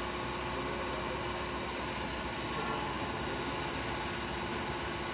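Steady machinery hum with a hiss, with two faint light clicks a little after three and a half seconds in.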